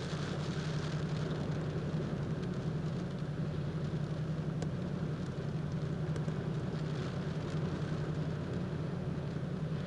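Steady rumble of storm wind and lake waves heard from inside a car, with a few faint ticks.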